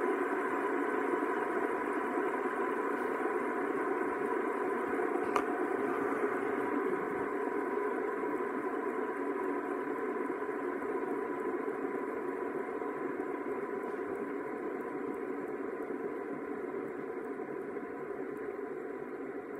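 Several fidget spinners whirring together on a tabletop, their bearings giving a steady hum that slowly fades as the spinners lose speed. A single sharp click about five seconds in.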